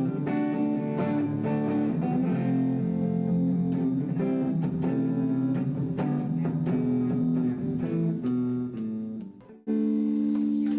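Guitar music: plucked notes and chords played in a flowing line, breaking off briefly about nine seconds in before a held chord.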